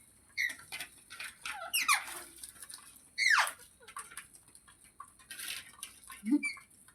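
Rose-ringed (Indian ringneck) parakeet making a string of short squeaks and chirps, with two louder calls that sweep down in pitch, about two and three and a half seconds in.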